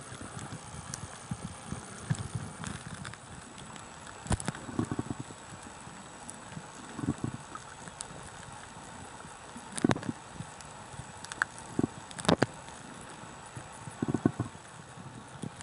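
Water heard through a camera recording underwater: a steady hiss broken by irregular knocks and clicks, with a few sharper knocks about 4, 10 and 12 seconds in.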